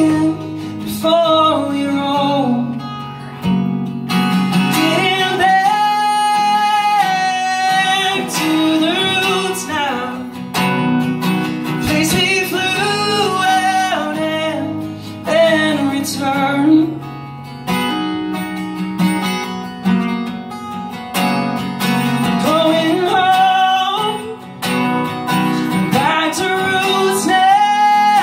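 A man singing while strumming an acoustic guitar, a solo live song with some long held notes.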